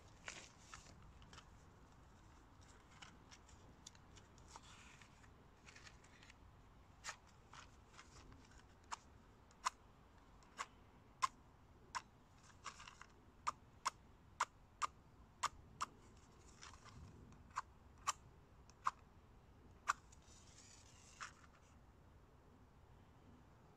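About twenty sharp clicks, irregularly spaced and coming at roughly one or two a second through the middle, with soft rustling between them.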